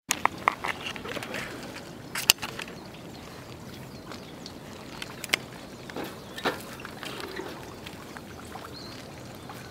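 Outdoor ambience: a steady hiss with scattered short, sharp clicks and ticks, several close together in the first seconds and a few more later on.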